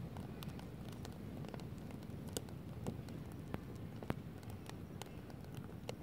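Wood campfire crackling: sharp, irregular pops of burning logs over the steady low noise of the flames, the loudest pop about four seconds in.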